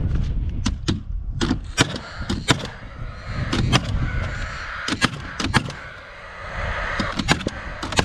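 Paslode cordless gas-powered framing nailer firing nails into framing lumber: about a dozen sharp shots, several in quick pairs.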